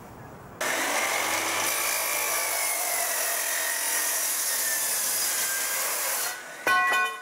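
DeWalt miter saw cutting through aluminum conduit: a steady, loud cut starting about half a second in and lasting some six seconds. Near the end come a few short ringing metallic clinks.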